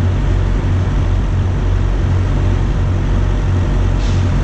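Steady low rumble of road vehicles, idling and passing engines, with a brief hiss near the end.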